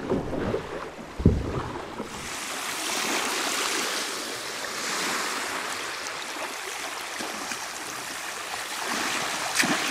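Small waves washing and lapping in shallow seawater, an even rushing hiss that swells and eases gently. A single dull thump a little after a second in.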